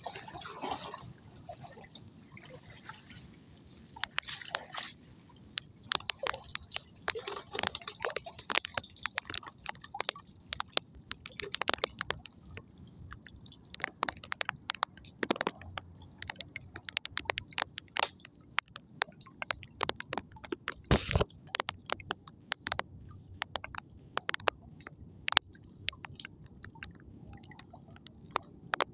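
Hands rustling and scraping over a fine nylon mesh net, picking through weeds and debris caught in it, making many short, irregular crackles and clicks.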